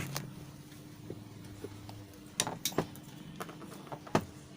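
A handful of light knocks and clicks, the loudest about four seconds in, as a blower fan motor is picked up and handled, over a faint steady hum.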